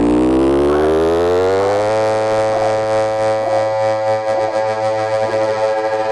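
Electronic music: a buzzy synth tone sweeps upward in pitch for about two seconds, then holds a steady note.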